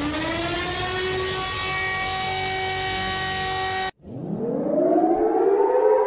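Civil defense siren winding up to a steady wail, cut off abruptly just under four seconds in; a second siren then starts winding up, rising in pitch.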